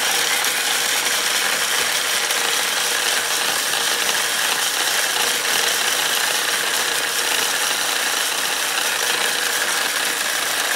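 Small electric food chopper running steadily, grinding Hot Cheetos into crumbs.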